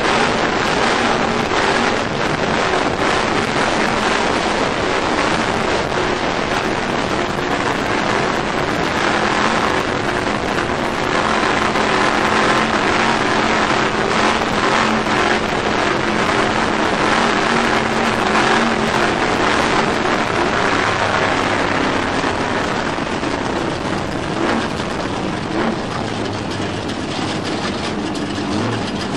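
Off-road truck driving fast over rough desert dirt: a steady engine note under dense wind and road noise, easing off a little near the end.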